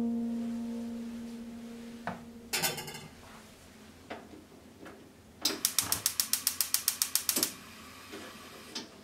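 Gas stove burner being lit: a short burst of clicks about two and a half seconds in, then about two seconds of rapid, even spark-igniter clicking, roughly ten clicks a second, before the flame takes.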